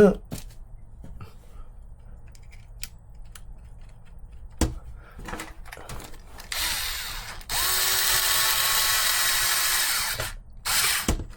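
Cordless drill-driver running in short spurts while fitting the rear shock mount of an RC car: a brief burst about six and a half seconds in, a steady run of about two and a half seconds, and another short burst near the end. Before it, a few small clicks and one sharp knock of parts being handled.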